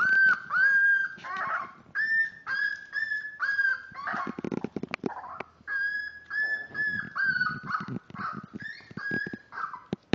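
Five-week-old miniature dachshund puppies whining and yelping, a run of short high-pitched cries several a second, with scuffling and rustling in the middle.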